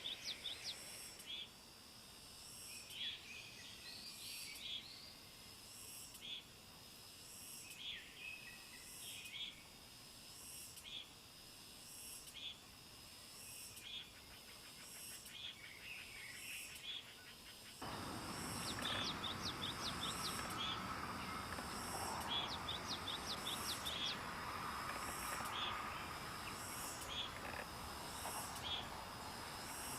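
Birds chirping and calling over a high pulsing buzz that repeats about once a second. The background noise suddenly gets louder about eighteen seconds in.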